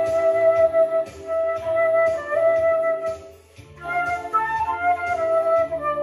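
Concert flute playing a song melody in long sustained notes over an accompaniment with a steady low beat; the flute pauses briefly a little past the middle of the phrase, then the melody resumes.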